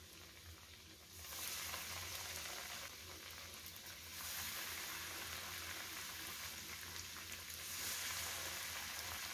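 Batter-and-oat-coated bread pieces deep-frying in hot oil, a steady sizzle. It swells louder about a second in, and again about four seconds in when another coated piece goes into the oil.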